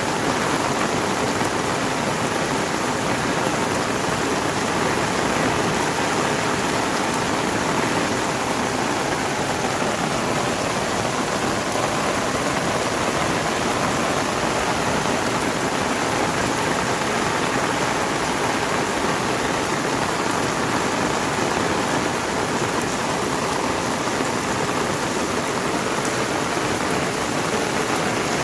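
Heavy rain falling and pattering on surfaces, a steady loud hiss.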